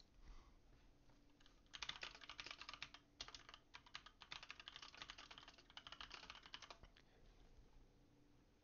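Typing on a computer keyboard: a fast, uneven run of key clicks for about five seconds, starting a couple of seconds in, then stopping.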